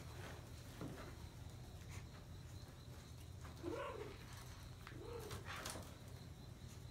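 Maltese puppy giving two short whiny yips, one about three and a half seconds in and a softer one about five seconds in.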